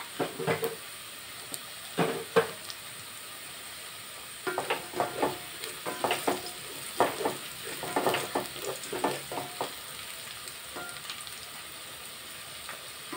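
Onions, green chillies and cashews sizzling in oil and ghee in a metal pot, stirred with a wooden spatula that scrapes the pot in bursts, busiest from about four to ten seconds in.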